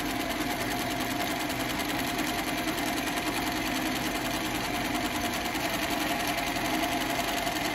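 Consew 227R-2 single-needle walking-foot cylinder-bed industrial sewing machine stitching steadily through heavy vinyl backed with thick foam. The needle and feed clatter in a fast, even rhythm over a steady motor hum, without a break.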